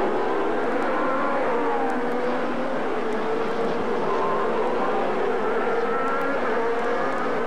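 ITC Class 1 touring cars' V6 racing engines running hard. Several overlapping engine notes rise and fall in pitch.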